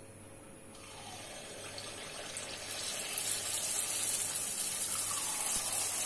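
Rice-and-urad-dal batter sizzling as it is spooned into hot oil in the wells of a paniyaram pan. The sizzle starts about a second in and grows louder as more batter goes in.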